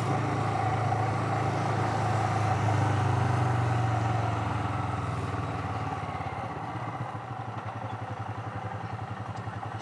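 Royal Enfield Himalayan's single-cylinder engine running as the bike rolls slowly, easing off so that over the last few seconds it drops to a slow, even beat of firing pulses.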